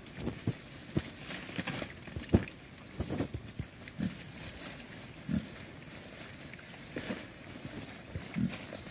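Small Chrouk Kandorl pigs feeding on banana leaves: a few short, low grunts over steady crisp crunching and rustling as they chew and tear the leaves.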